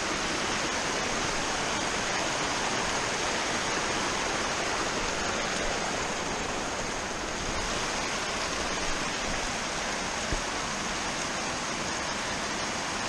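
Steady rush of a fast-flowing stream running full after heavy overnight rain, with a faint knock about ten seconds in.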